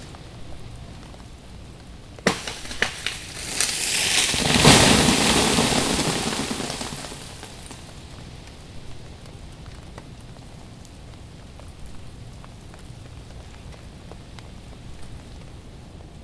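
An ice-laden tree branch snaps with a sharp crack about two seconds in, then crashes down through other limbs in a rushing shatter of ice that swells for a few seconds and dies away. Around it, a steady light patter with scattered small ticks.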